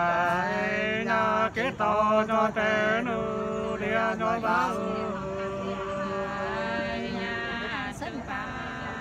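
Two men singing sli, the Nùng people's call-and-answer folk love song, unaccompanied, in long drawn-out notes with a wavering pitch.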